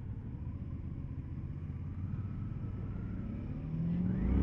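Motorcycle engine running at low revs, then revving up with a rising pitch near the end as the bike accelerates.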